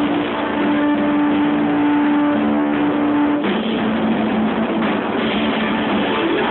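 Live band playing with electric guitar, one note held for about three and a half seconds before the music moves on.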